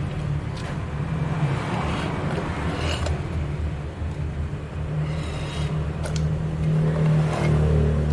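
A steady low rumble, like a motor running, growing louder about seven and a half seconds in, with a few light clicks over it.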